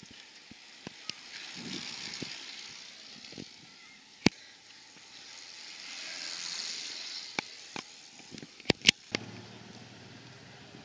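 Racing bicycles passing close on asphalt: the whir of tyres and drivetrain swells and fades, softly about a second in and louder around the middle. It is broken by a few sharp clicks, and near the end a low steady engine hum comes in.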